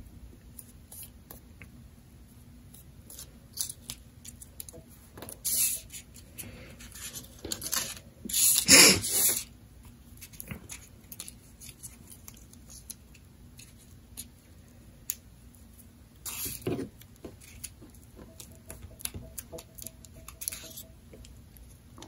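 Sheets of folded printer paper rustling and crinkling as they are handled and glued, with scattered small taps and clicks. A few louder rustles stand out, the loudest near the middle lasting about a second.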